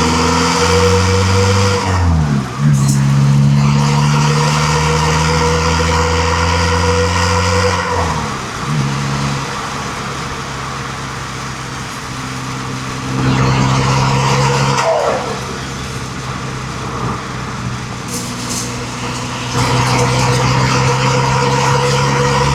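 1.9 TDI four-cylinder turbodiesel engine running at held revs in long stretches. The revs fall sharply about two, eight and fifteen seconds in, and it runs louder again from about thirteen and twenty seconds in.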